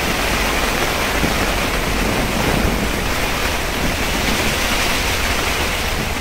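Heavy rain pouring down, a steady, dense hiss of a downpour on the lake and on the bivvy's fabric overhead.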